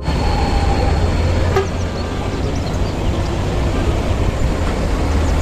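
Diesel engine of a Hino 500 fuel tanker truck running as the truck comes round a bend toward the camera, a deep steady rumble, with road traffic behind it.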